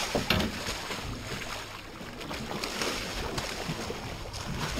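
Water splashing and churning as a hooked fish thrashes at the surface against the hull, with wind buffeting the microphone.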